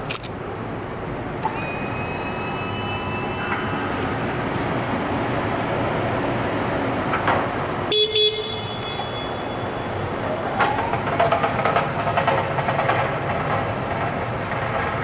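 Raymond 8410 walkie rider 24-volt electric pallet truck in use: a held tone about two seconds in and a short tone near eight seconds, then a rising electric drive-motor whine with clicks and rattles as it pulls away, over a steady hum.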